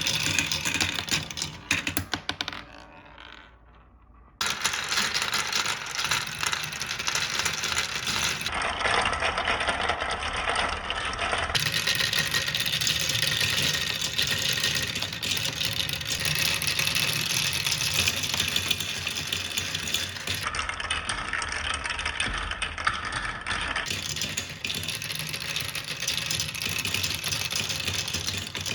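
Many marbles rolling and clattering down marble-run tracks, a dense rattle of rapid clicks. About two seconds in it dies away to near quiet, then starts again abruptly and runs on.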